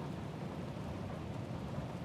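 Steady rain with a continuous low rumble of thunder.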